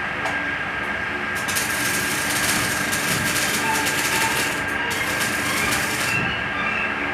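Electric arc welding on steel: the arc crackles and sizzles from about a second and a half in, breaks off briefly near the five-second mark, and stops about six seconds in.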